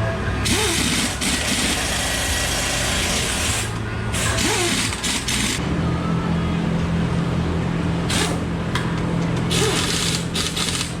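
An engine running steadily, its pitch shifting about halfway through, with loud hissing on and off over it.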